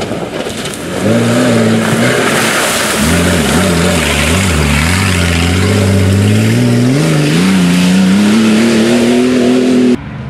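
Off-road rally car's engine revving hard under load through mud, its pitch rising and falling as the throttle is worked, then climbing steadily as it pulls away. The sound cuts off sharply near the end.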